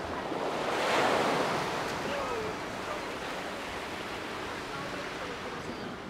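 Surf washing onto a sandy beach, a steady wash that swells about a second in and then settles.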